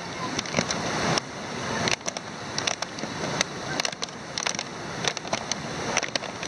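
Knife tip punching holes in a thin plastic water bottle: irregular sharp clicks and crackles of the plastic over a steady rushing background noise.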